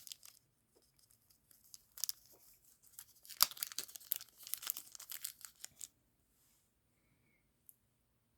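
Packaging crinkling and tearing as it is handled and opened, an irregular run of crackles that stops about six seconds in.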